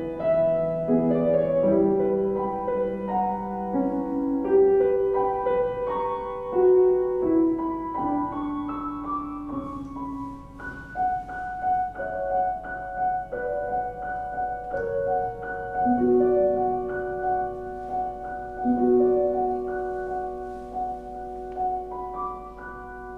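Piano playing a slow passage. Chords move step by step downward, then from about halfway a high note is struck again and again, roughly once a second, over held lower notes, and the sound grows softer near the end.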